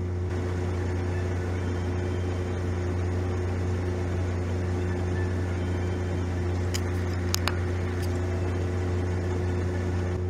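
Steady low drone of a parked semi truck idling, heard from inside its cab. A few light clicks come about seven seconds in.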